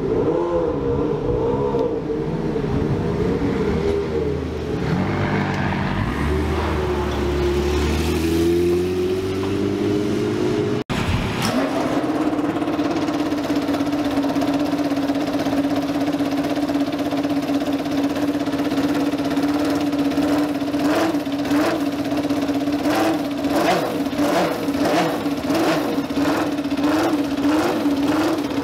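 Car engine revving and falling back. After a brief dropout it is held at a steady, fairly high engine speed. In the last several seconds a regular run of sharp knocks or pops, roughly two a second, rides over it.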